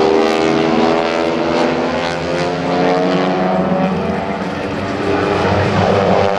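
Four North American T-6 Texans' 600-horsepower Pratt & Whitney R-1340 nine-cylinder radial engines and propellers flying past together in formation. It is a steady, loud drone of overlapping engine tones. The propeller tips run near the speed of sound, which gives the T-6 its loud, loud noise.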